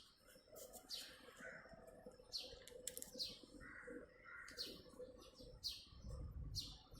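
Birds chirping faintly: short, quick downward chirps repeated about once a second. A low rumble comes in near the end.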